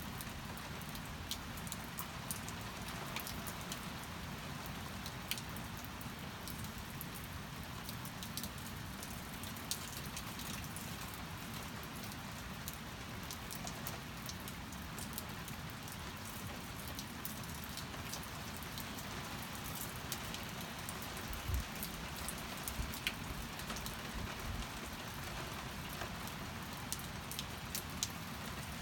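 Steady rain falling, with scattered drops ticking and a couple of brief low thuds about two-thirds of the way through.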